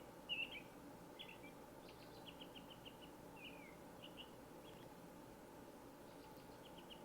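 Faint birdsong: scattered short chirps and call notes, with a quick run of ticking notes about two seconds in, over a faint steady background hiss.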